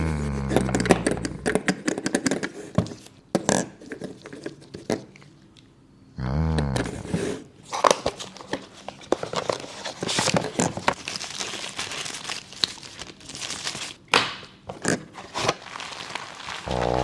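Packaging being torn open and crinkled, with irregular rustles, clicks and knocks. A low pitched tone lasting about a second cuts in near the start and again about six seconds in.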